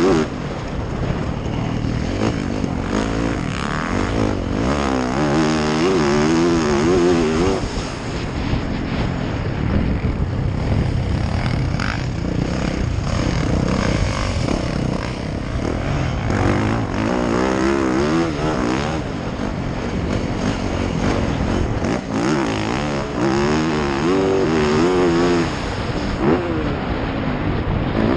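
Dirt bike engine being ridden hard, its pitch rising and falling again and again as the rider throttles on and off and shifts through the gears.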